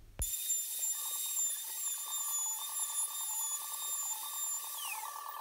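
Plunge router running with a steady high-pitched whine as it flattens a wooden slab; the whine falls in pitch about five seconds in as the router winds down.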